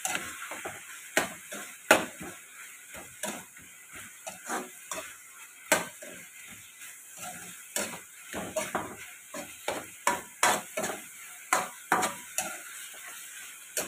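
A spatula scraping and knocking against a wok as chicken and holy basil are stir-fried, with irregular clinks over a steady sizzle.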